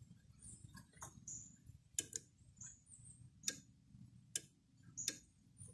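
Scattered sharp clicks, about five at irregular intervals, from handling the controls of an Arctic King window air conditioner as it is being switched on. Short, faint high chirps come in between the clicks.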